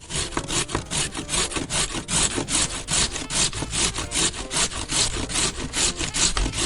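Hand saw cutting through wood with quick, even back-and-forth strokes, several a second.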